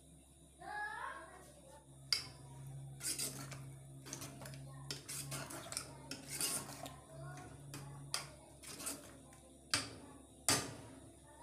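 Metal ladle stirring thick dal in an aluminium pressure cooker pot, scraping and clinking against the metal sides, with several sharp clinks.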